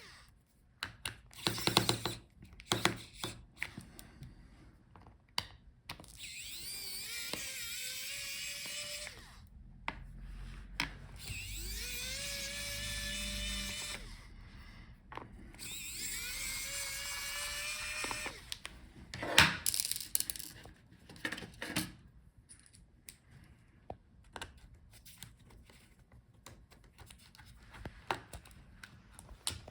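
Electric precision screwdriver backing out the battery's retaining screws: several short runs of motor whine that rises in pitch as each run starts, with sharp clicks and knocks of the screwdriver and screws being handled between runs.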